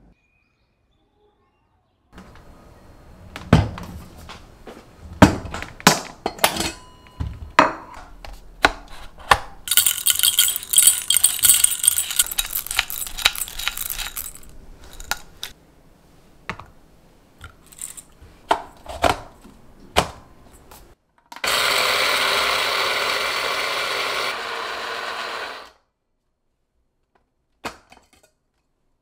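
Glass jar and metal cup handled with clinks and knocks, then coffee beans poured rattling into a stainless-steel grinder cup for about four seconds. Near the end an Osner Elkona electric coffee grinder runs steadily and loudly for about four seconds, grinding the beans, then stops.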